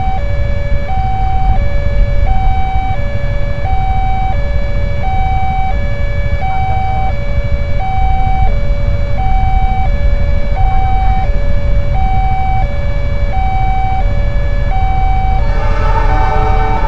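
Railway level-crossing warning alarm from the crossing signal's loudspeaker, a two-tone electronic signal alternating high and low, one full cycle about every second and a half, over a steady low rumble. A horn joins near the end.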